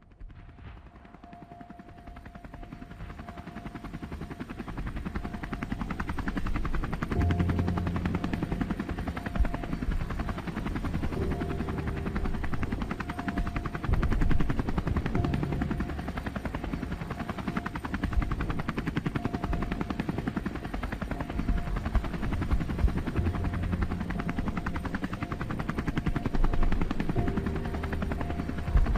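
Small quadcopter drone's propellers whirring, growing louder over the first several seconds and then holding, with the pitch shifting now and then as it manoeuvres.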